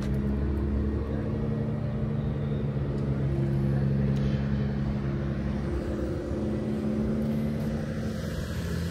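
Car engine idling steadily with a low, even hum.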